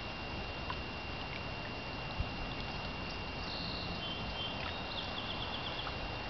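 Steady outdoor lakeshore background: a low rumble and hiss with a constant thin high whine, and a brief run of faint high chirps a bit past the middle.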